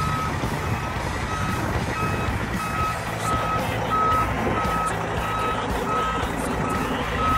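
Vehicle backup alarm beeping steadily, about two beeps a second, over the low rumble of a semi truck's diesel engine running.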